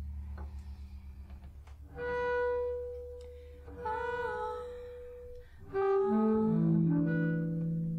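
Solo double bass played with the bow. A low note with a fast pulsing fades out, then high sustained notes sound about two and four seconds in, the second one wavering and gliding in pitch. Near the end a run of notes steps downward into the low register.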